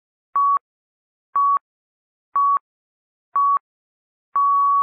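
Film-leader countdown beeps: a single steady tone sounding once a second, four short beeps and then a long held beep starting near the end.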